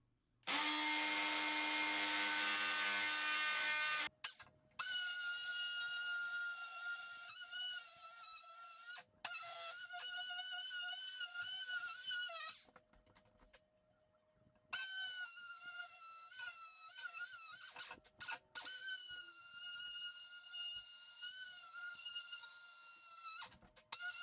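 A handheld power tool cutting drywall, running in several bursts with short stops; its high whine wavers and dips in pitch as the blade bites.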